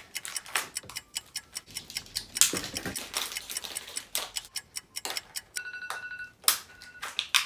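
Crinkling and tearing of foil mystery-pack wrappers in quick short crackles. From about five and a half seconds in, an electronic timer beeps with a steady tone, then once more briefly: the one-minute countdown running out.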